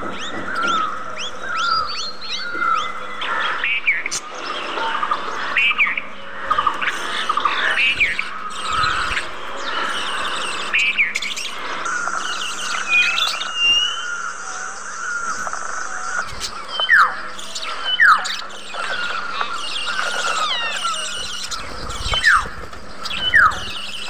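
A flock of budgerigars chirping and warbling in continuous chatter, with several sharp falling squawks standing out in the second half.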